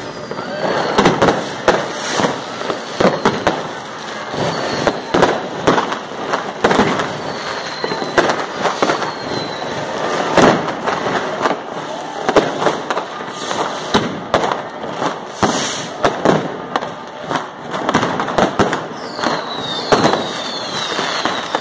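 New Year's fireworks going off without pause: rockets and firecrackers make dense, irregular bangs and crackling. Now and then a short whistle falls in pitch, with several close together near the end.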